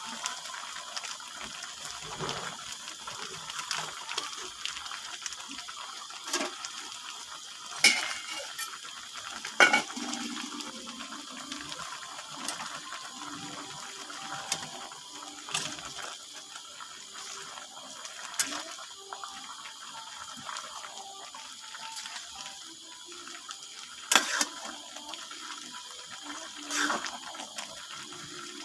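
Water running steadily, with several sharp knocks and clinks of pots and kitchen utensils scattered through it.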